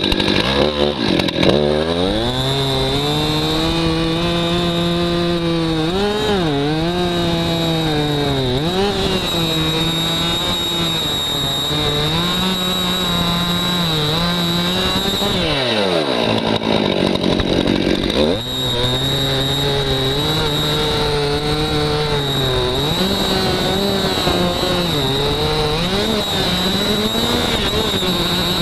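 Stihl MS261 C-M two-stroke chainsaw running at high revs while cutting wood, its pitch sagging briefly under load. About halfway through the revs drop off sharply, then climb back up.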